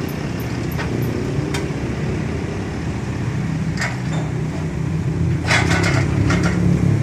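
Metal clinks and knocks over a steady low hum: a few single knocks, then a quick rattling run of clinks about five and a half seconds in.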